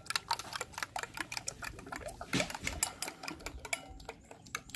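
Metal spoon beating raw eggs in a bowl: quick, even clicks, several a second, as the spoon strikes the bowl.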